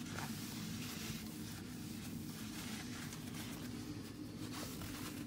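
Steady hum of a bathroom exhaust fan, with faint rubbing of a paper towel wiping a vinyl window frame.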